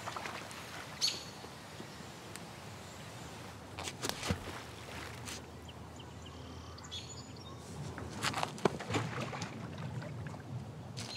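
Stones skipped across water, a few short splashing hits in clusters about four seconds in and again about eight to nine seconds in, over outdoor ambience with birds chirping.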